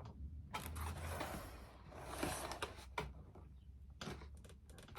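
Faint rustling and scraping of foam board pieces being handled and fitted, with a few light clicks and taps.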